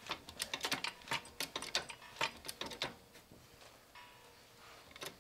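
A jack being pumped to lift a leaf spring, clicking in a steady rhythm of about three strokes a second. It pauses around three seconds in and starts again near the end.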